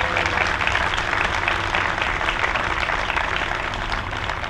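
Audience applauding, many hands clapping at once; the applause slowly dies down near the end.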